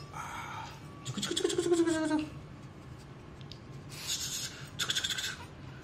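Young Shih Tzu puppy giving a whine, about a second long, starting a little over a second in and sliding slightly down in pitch. Softer hissing sounds follow near the end.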